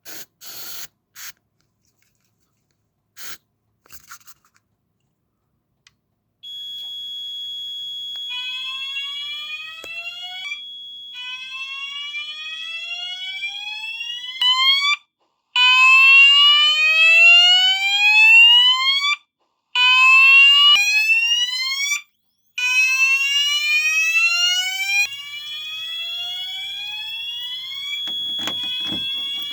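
Fire alarm sounders set off by a smoke detector test. A few short hisses of canned test smoke come first. About six seconds in, a steady high beep starts, then the evacuation tone follows: a rising whoop sweep repeated over and over, with brief dropouts. The steady beep comes back under it near the end.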